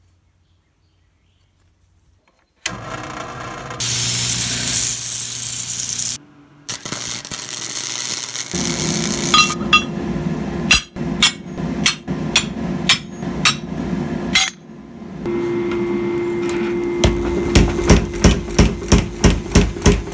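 Mechanical power hammer working hot steel plate. Its motor hums steadily, then it strikes in a rapid, even run of heavy blows, about three a second, in the last few seconds. Before that come irregular metal strikes over a hum and a stretch of rushing noise, after about two and a half seconds of near silence.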